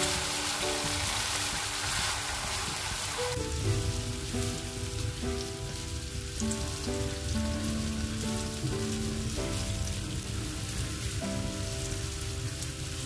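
Diced zucchini sizzling in oil in a nonstick frying pan, louder for about the first three seconds and softer after. Background music with a slow melody of held notes plays throughout.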